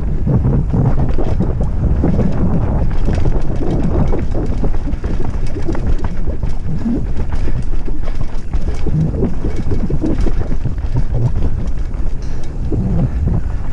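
Mountain bike descending a rough dirt singletrack at speed: heavy wind buffeting on the camera microphone over tyre rumble, with frequent short rattles and knocks as the bike hits bumps and roots.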